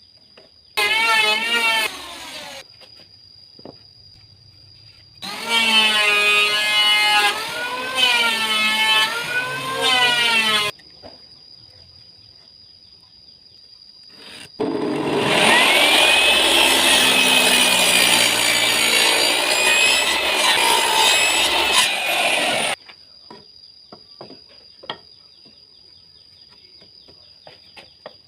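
Drum sander running for about seven seconds in the middle, a dense noise with a motor whine that rises as it spins up, holds steady and falls as it winds down. Earlier come a short and then two longer stretches of a wavering, pitched sound.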